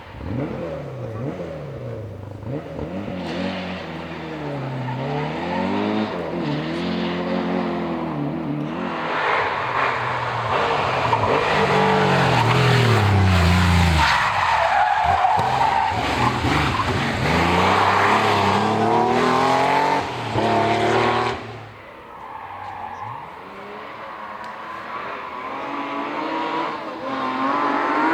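Historic rally car engine at full throttle, revving up and falling back through the gear changes as the car comes closer and passes, with tyre squeal. The sound cuts off suddenly about two-thirds of the way through, and near the end another car's engine climbs in pitch as it approaches.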